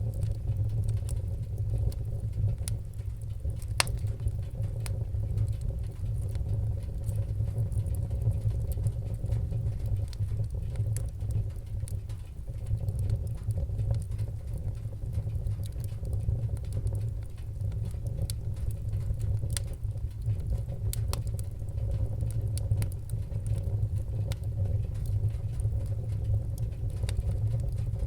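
Wood-burning fire crackling, with scattered sharp pops and snaps over a steady low rumble of the flames.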